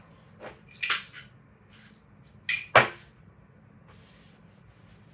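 Paper being handled and rolled around a toothpick: short rustles about a second in, then two louder rustles near the three-second mark, the second one ending in a knock.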